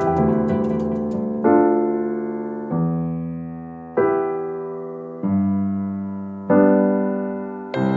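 Slow, soft piano-style keyboard music: sustained chords struck about once every second and a quarter, each fading before the next, with a few high tinkling notes over the first second.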